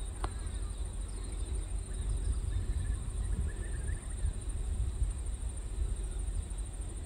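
Rural outdoor ambience: a steady, high-pitched, pulsing insect trill over a low rumble, with a click just after the start and a few faint bird chirps in the middle.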